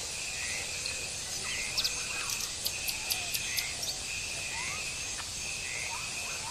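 Outdoor garden ambience: birds chirping here and there over a steady hiss, with a high buzzing call that repeats in roughly one-second stretches.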